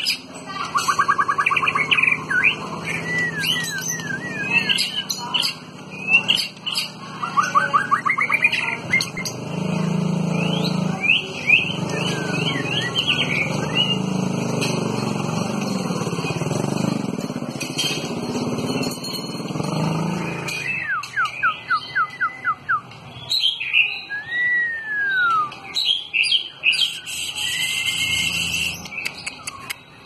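White-rumped shama singing its contest song: a varied run of clear whistled phrases, quick repeated trills and downward slurs, with short breaks between phrases.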